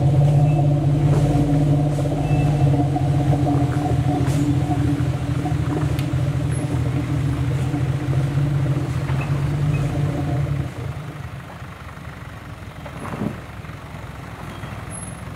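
Off-road vehicle engine running at a steady speed, cutting off abruptly about ten seconds in, followed by a brief knock.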